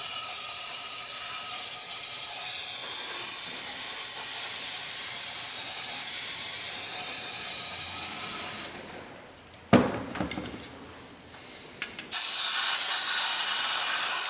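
Compressed-air blow gun blasting into the water jackets of a Subaru EJ253 engine block with a loud, steady hiss, blowing out sludge and debris. The air cuts off about nine seconds in, a sharp clack follows a second later, and a second blast starts about twelve seconds in.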